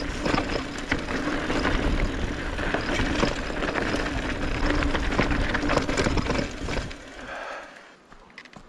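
Wind buffeting the microphone on a moving mountain bike, with the crunch and rattle of tyres over a dirt trail. The rumble drops away sharply near the end.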